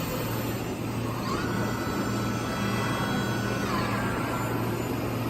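5-axis CNC machine running with a steady hum and noise. About a second in, a whine rises, holds steady, and falls away again a little before the end.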